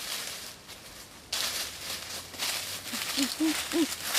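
Footsteps and rustling through dry fallen leaves, louder from about a second in, with three short syllables from a person's voice near the end.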